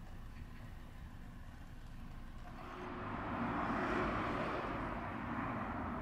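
City street traffic: a low rumble, then a car passing by, its tyre and engine noise swelling from about halfway through and easing only slightly after.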